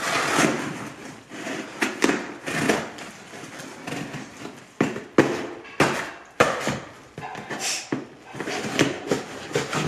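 Cardboard shipping box being cut and pulled open: an irregular run of rasping scrapes and sharp knocks from the cardboard and tape.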